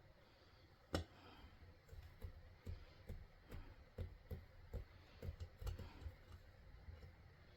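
Faint, irregular clicking and tapping as polymer clay cane pieces and tools are handled on a hard work surface, with one sharper knock about a second in and a loose run of softer taps after it.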